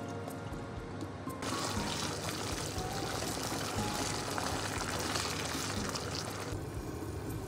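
Sizzling hiss of vegetables and meat cooking in sauce in a deep frying pan, starting abruptly about a second and a half in and cutting off about six and a half seconds in, under soft background music.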